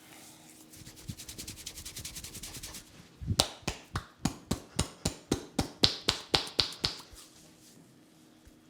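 Hands striking a head in percussive Indian head massage: a quick run of light taps, then sharper, louder slaps at about four a second that stop about seven seconds in.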